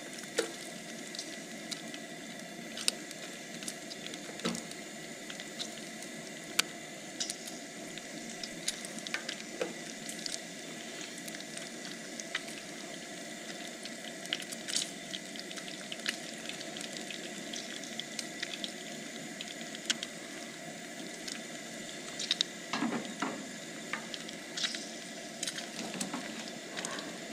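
Bacon sizzling in a frying pan on a Coleman dual-fuel camp stove: a steady hiss with scattered small pops and the light clicks of a fork and spatula against the pan.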